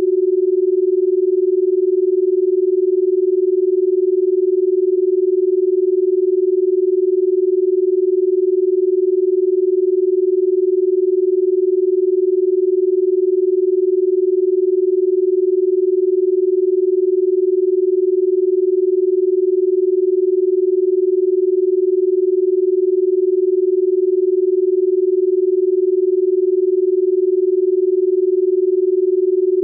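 Electronic sine tone held steady at one pitch, just above middle C, the carrier tone of a subliminal audio track.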